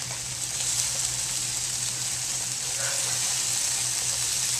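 Chicken strips, sliced onions and bell peppers sizzling steadily in a hot pan, stirred with a slotted spatula.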